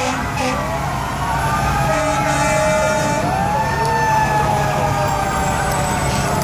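Several fire-truck and emergency-vehicle sirens wailing at once, their pitches rising and falling out of step with one another, over a steady low hum.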